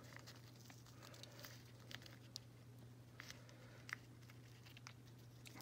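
Near silence: a few faint clicks and taps of fingers handling a small plastic doll shoe and its fuzzy cover, the most distinct about four seconds in, over a low steady hum.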